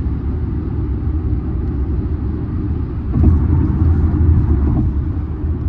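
Steady low rumble of a car driving, road and engine noise heard from inside the cabin, growing a little louder about three seconds in.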